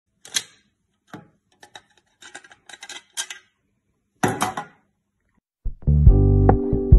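Clear plastic parts of a guppy breeding box clicking and clacking as they are handled and separated, a string of sharp clicks with a louder clatter near the middle. Loud guitar music starts about two-thirds of the way through.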